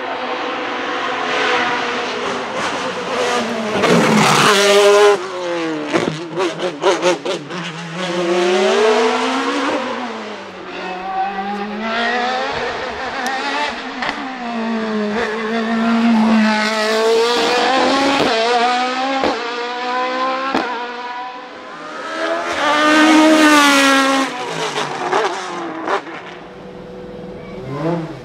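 Hillclimb sports-prototype race cars driven flat out up a mountain course, one after another. Their high-revving engines climb and drop in pitch again and again through upshifts and downshifts, with the loudest passes about four and twenty-three seconds in and a quick run of sharp cracks around six to seven seconds in.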